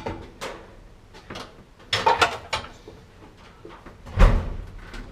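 Scattered knocks and clunks from handling a GE gas dryer wedged into a narrow space. There is a cluster of knocks about two seconds in and a heavy, low thump a little after four seconds.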